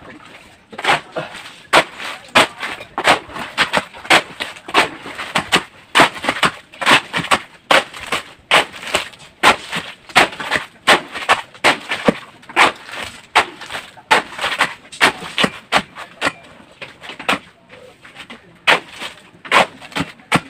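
Steel shovel scraping and scooping hand-mixed concrete on a bare floor: a steady run of short, sharp scrapes, two or three a second.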